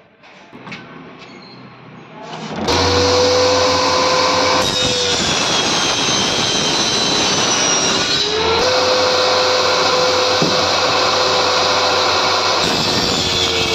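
Homemade table saw running: a circular saw blade under a plywood top gives a loud, steady machine noise with a constant whine. It comes in abruptly about two and a half seconds in, after a few light knocks of plywood being handled, and its pitch sags and recovers briefly near the middle.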